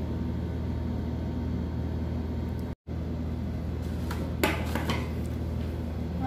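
A steady low hum with a brief dropout to silence about three seconds in, then a short knock or rustle about four and a half seconds in.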